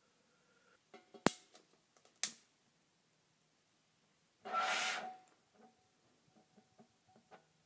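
Fuel vapour in a glass jar catching light at the hole in the lid: two sharp clicks, then about four and a half seconds in a short whoosh with a faint rising whistle, followed by faint crackling ticks as the blue flame burns inside the jar.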